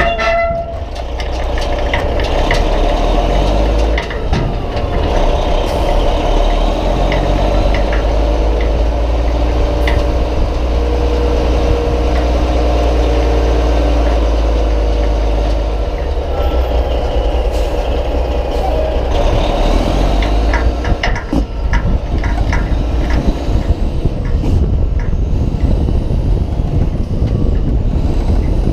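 Diesel dump truck running and driving with its empty steel bed, a heavy low engine rumble with several changes in engine note, and sharp knocks and rattles that come thicker in the second half.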